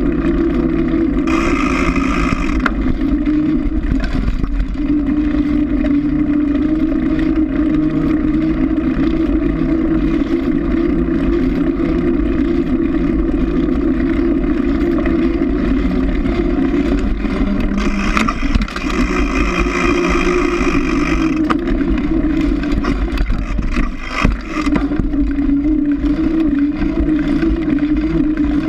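Mountain bike tyre rolling on pavement heard from a fork-mounted camera: a steady drone over a low rumble, with a brighter hiss joining twice, shortly after the start and again around eighteen seconds in.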